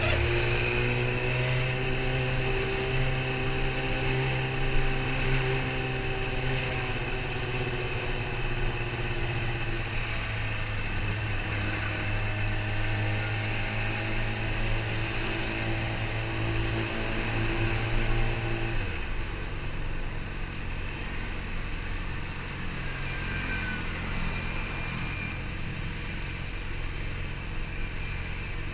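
Yamaha R6 600cc inline-four engine running at low, steady revs while filtering through slow traffic, its pitch drifting slightly up and down. About two-thirds of the way through, the engine note drops suddenly to a lower, steadier hum, with road and wind noise throughout.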